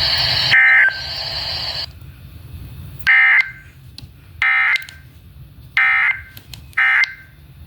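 NOAA Weather Radio's EAS end-of-message signal: short bursts of SAME digital data tones, five in all, each about a third of a second long and a second or so apart, marking the end of the severe thunderstorm warning. Radio static hisses under the first burst and cuts off about two seconds in.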